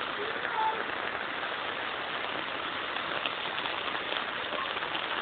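Rain falling, a steady hiss with a few small drop ticks about three to four seconds in.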